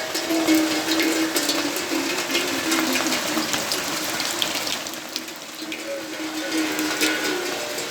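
Steady rain, with many separate drops ticking on nearby surfaces over a wash of falling water, and a wavering tone underneath; it eases a little about five seconds in.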